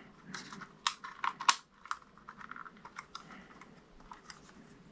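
Irregular plastic clicks and taps as the folding arms of a DJI Mavic Mini drone are swung out and the drone is turned in the hands, with the sharpest clicks in the first two seconds and fainter ones after.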